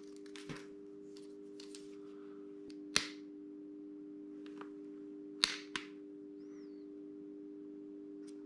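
Sharp clicks and taps of hard plastic as an Airflaps goggle-vent bracket is handled and pressed onto a motocross helmet shell, the loudest about three seconds in and about five and a half seconds in, over a steady low hum.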